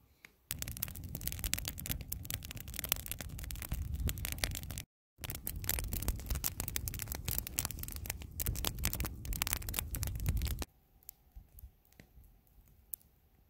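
Small campfire of dry twigs and grass burning briskly, crackling and popping densely over a low rush. It breaks off briefly about five seconds in, then stops abruptly near the end.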